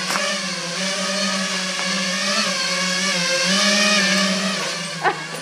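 FPV racing quadcopter's brushless motors buzzing steadily, the pitch wavering up and down with the throttle.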